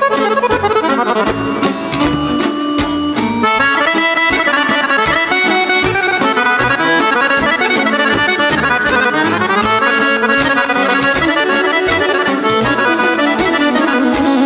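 Live band playing a lively traditional folk tune with the accordion to the fore, loud and steady, in fast runs of notes, with no singing.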